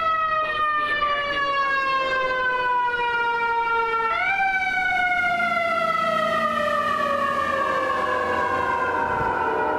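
Emergency vehicle siren wailing, its pitch falling slowly, jumping back up about four seconds in, then falling slowly again.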